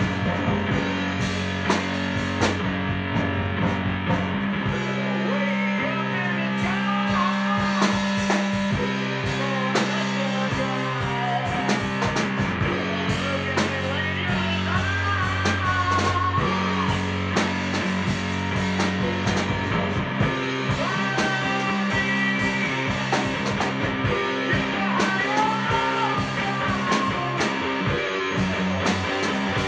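Rock music with guitar, drums and a steady bass line.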